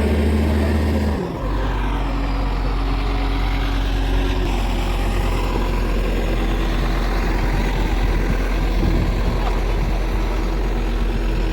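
A large engine running steadily, its note dropping to a lower, steady hum about a second in.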